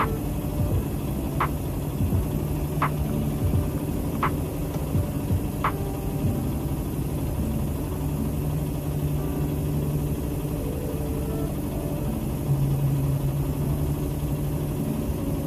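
Salon body-contouring machine running steadily, its suction handpiece on a hose, with a low motor hum. A short high beep sounds about every second and a half, four times in the first six seconds.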